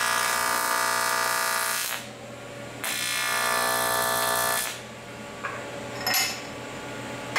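AC TIG welding arc on aluminum plate buzzing in two runs of about two seconds each, with a short break between them. A short knock follows about six seconds in.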